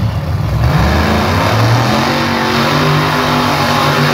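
Big-dog drag racing cars at wide-open throttle down the strip, their engines very loud; the pitch climbs after about a second, then holds steady.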